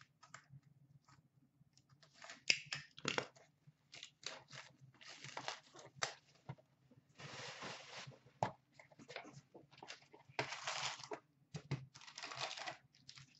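Plastic shrink-wrap being torn and crumpled off a cardboard box of hockey cards, in irregular crinkling rustles and short tears, with small taps and clicks as the box is handled and opened near the end.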